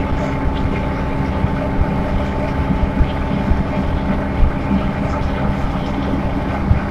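City bus running steadily along its route, a constant engine drone with low road rumble and scattered short knocks and rattles.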